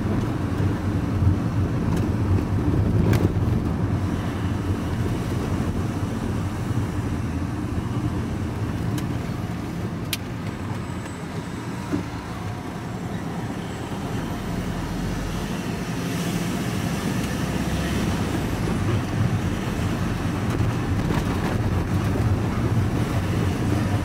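Vehicle engine and tyre noise heard from inside the cab while driving slowly through town streets. The rumble eases about halfway through, as the vehicle slows at a junction, then builds again as it pulls away.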